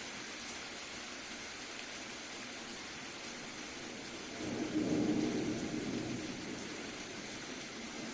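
Steady soft rain, an even hiss. About halfway through, a low rumble swells for a couple of seconds and fades back into the rain.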